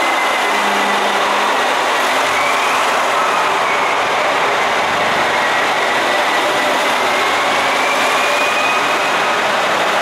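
KiHa 283 series diesel multiple unit pulling out and running past: a loud, steady din of its diesel engines and wheels on the rails, with a faint high whine that wanders slowly in pitch.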